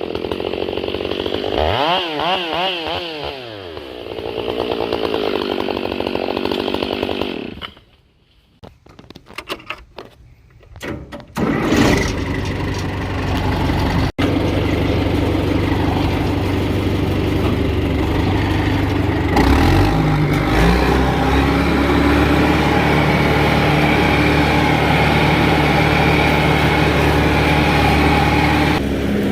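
Stihl 661 C two-stroke chainsaw revving up and down as it cuts, then stopping about seven seconds in. After a few seconds' lull with a few knocks, the diesel engine of a John Deere 540D skidder runs steadily.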